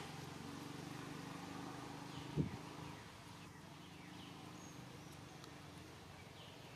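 A distant motor hums steadily and fades away about halfway through. A single sharp knock comes about two and a half seconds in, with a few faint bird chirps.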